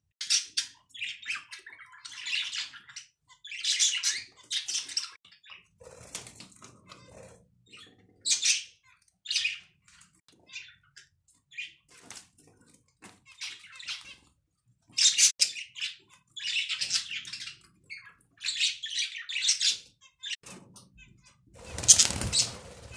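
Pet budgerigars chirping and fluttering in repeated short bursts, with a louder, fuller burst near the end.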